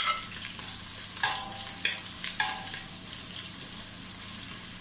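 Sliced onions sizzling as they sauté in hot cooking oil in a stainless steel pot, with a wooden spoon stirring them and scraping the pot now and then. The sizzle is a steady hiss, with short spoon sounds about a second and two and a half seconds in.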